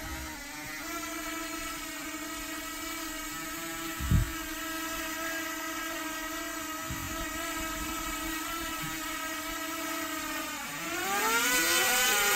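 DJI Mini 3 drone hovering close by, its propellers giving a steady whine. There is one thump about four seconds in. Near the end the pitch rises and the whine gets louder as the propellers speed up.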